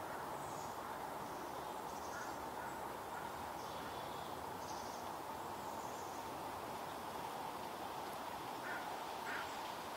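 A chickadee scolding with short, high call notes at irregular intervals over steady background noise.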